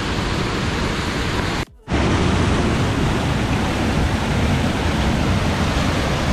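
Loud, steady rush of a waterfall, river water pouring fast between boulders. The sound cuts out for a fraction of a second just before two seconds in.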